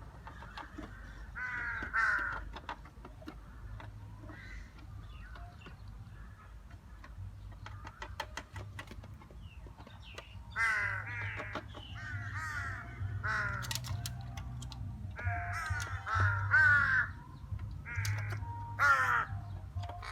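Crows cawing: a couple of harsh caws about two seconds in, then repeated bouts of caws through the second half, several calls in quick succession.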